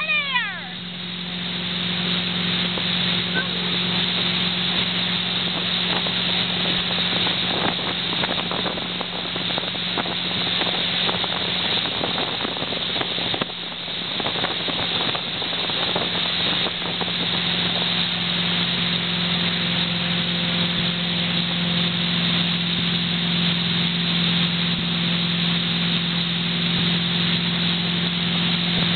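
Motorboat engine running steadily at towing speed, a constant drone under the rush of the wake and wind buffeting the microphone.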